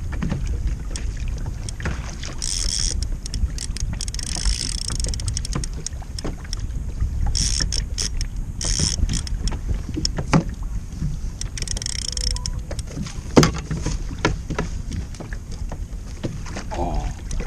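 Wind and water noise on a fishing kayak at sea: a steady low rumble of wind on the microphone with bursts of hiss. Scattered knocks and clicks run through it, the sharpest and loudest about thirteen seconds in.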